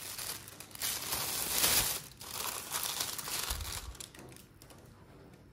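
Tissue wrapping paper crinkling and rustling as it is pulled off a pillar candle by hand. The rustle is loudest a second or two in and dies away after about four seconds.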